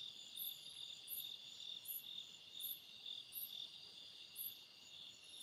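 Night insects, crickets among them: a steady high trill, with a second, higher chirp repeating evenly about three times every two seconds.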